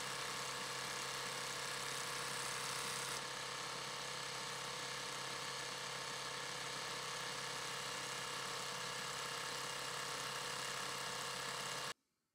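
Singer 281-1 industrial sewing machine running steadily at speed, freshly oiled after new oil wicks were fitted, on its test run. It stops abruptly near the end.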